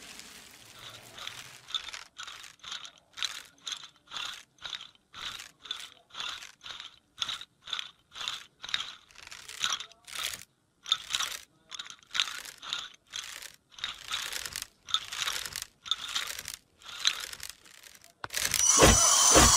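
Sound effect of rattling skeleton bones: a dry, crunchy clatter in short separate bursts, about two a second. Near the end it gives way to a much louder burst of noise with a few heavy thumps.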